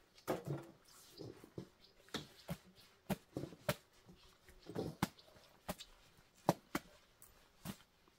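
Irregular sharp clicks and taps of food and cooking utensils being handled, some louder than the rest, while flatbread is turned over a metal charcoal brazier.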